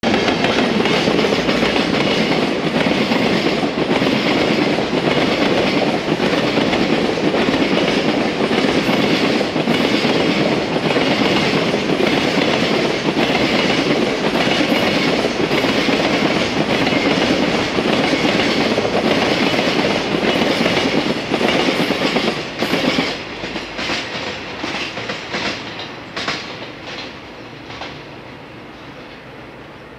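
Container freight train passing close by, its wagon wheels clattering steadily over the rails. About 23 seconds in the sound drops away, with a few last clacks as the tail of the train recedes and fades.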